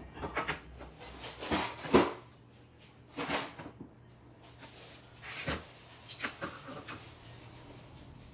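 Scattered knocks and clatter of wooden flooring planks being handled and set down on the floor, with a tape measure being handled, the sharpest knock about two seconds in.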